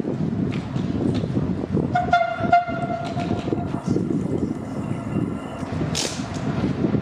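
FS E.656 electric locomotive rolling slowly into the station with a low rumble. About two seconds in, its horn sounds one steady note for about a second and a half. A short hiss near the end.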